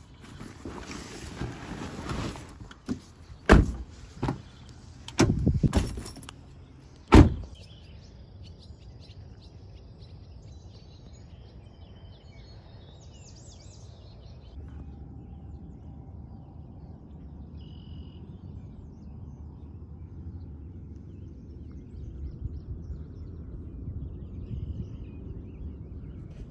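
Car door and gear sounds: a handful of sharp knocks and thuds in the first several seconds. Then a steady low outdoor rumble with a few faint bird chirps.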